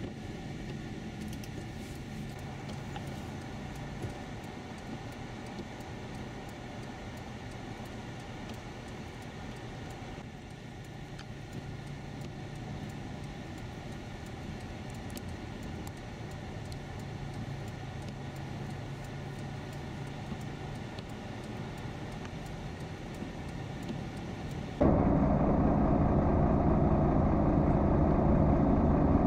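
Steady low rumble of a car's engine and tyres while driving along a snow-covered highway. About 25 s in it cuts abruptly to a much louder, steady wash of outdoor street noise.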